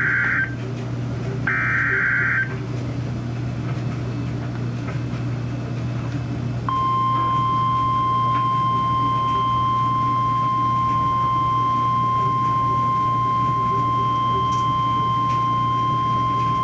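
NOAA Weather Radio Emergency Alert System signal for a severe thunderstorm warning. The tail of one SAME header data burst is followed by a second burst about a second and a half in, each a buzzy digital squawk lasting about a second. After a pause of a few seconds comes the steady 1050 Hz warning alert tone, held for about ten seconds over a low steady hum and cutting off at the end.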